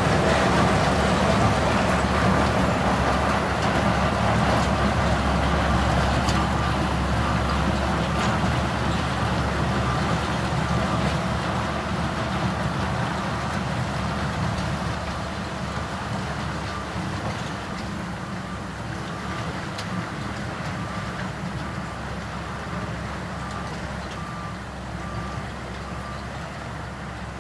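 Diesel engine of heavy earthmoving machinery running and slowly fading away, with a reversing alarm beeping at an even pace through the second half.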